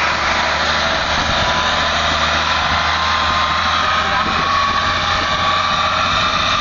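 Farm tractor engine running steadily while the tractor moves across a field.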